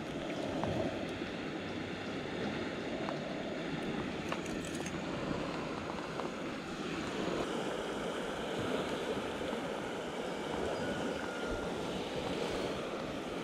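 Steady rushing of the Kings River flowing past, with wind on the microphone, and a few faint clicks in the first half.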